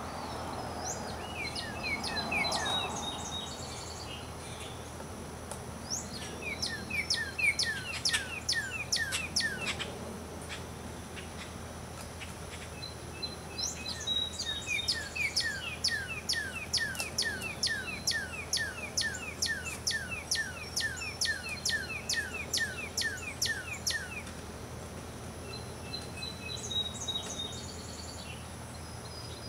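Birds chirping: two long runs of rapid, short falling chirps, about four to five a second, with a few scattered higher calls, over a steady faint background hiss.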